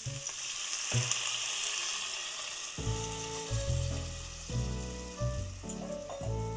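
A hot spiced potato mixture sizzling in the pan with water just added, stirred with a wooden spatula. Soft background music with steady held notes comes in about three seconds in.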